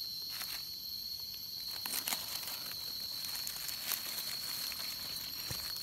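Dry leaf litter rustling and crackling as a hand reaches in to pick a mushroom from the forest floor, with a few sharp crackles about two and four seconds in. A steady high-pitched insect drone continues underneath.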